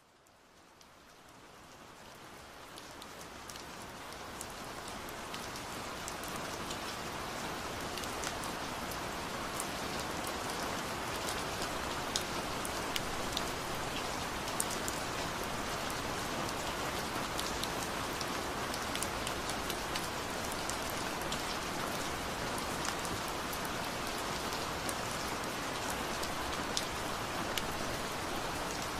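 Steady rain falling, an even hiss with scattered sharp drop ticks; it fades in over the first few seconds and then holds steady.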